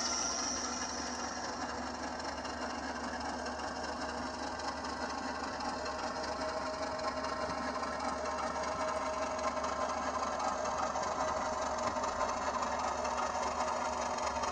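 HO-scale model diesel locomotive with a DCC sound decoder playing a steady diesel engine sound, along with the whir of its small motor and gears, as it creeps off the turntable bridge onto the track. The engine sound runs on without cutting out.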